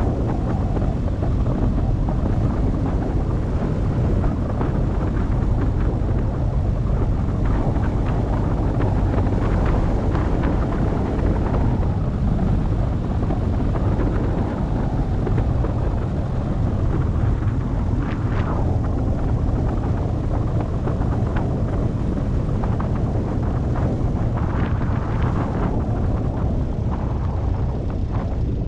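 Car driving along a road: a steady low rumble of engine, tyre and wind noise.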